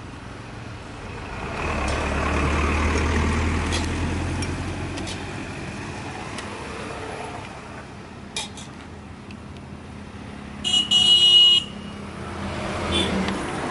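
Highway traffic going by: a vehicle passes with a low rumble in the first few seconds, and later a vehicle horn honks, a short blip then a longer toot of about a second, the loudest sound. Another vehicle approaches and passes near the end.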